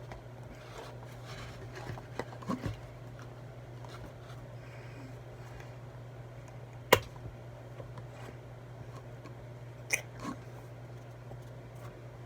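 Conditioner being squeezed from a plastic bottle into slime: a few scattered clicks and soft squelches, the sharpest about seven seconds in, over a steady low hum.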